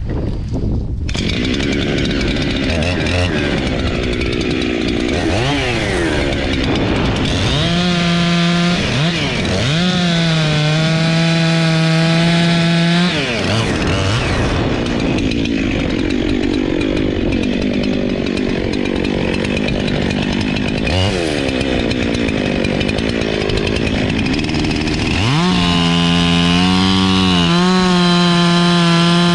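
Gas chainsaw cutting into a tree trunk during felling. The engine revs up and down: it holds a high, steady pitch for a few seconds around the middle and again near the end, and drops back briefly in between.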